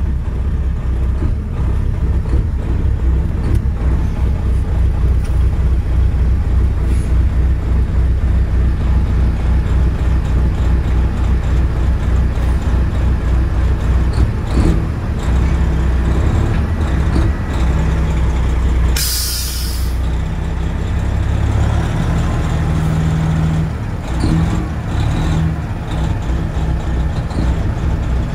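Semi truck's diesel engine running at low speed, heard from inside the cab. About two-thirds of the way through there is one loud hiss of air, about a second long, typical of the truck's air brakes.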